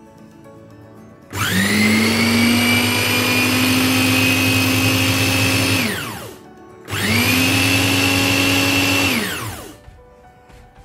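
Geepas electric mixer-grinder's small chopper jar running in two pulses, about four and a half seconds and then about three seconds, grinding cooked chicken, lentils and potatoes into a paste. The motor whine rises as each run starts and falls away as it stops.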